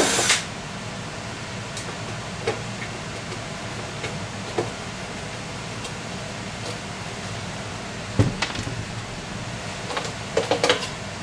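A power drill runs briefly at the very start, then sparse light knocks and clicks as the sheet-metal access panel on an electric water heater is worked loose and handled, with a small cluster near the end, over a steady low hum.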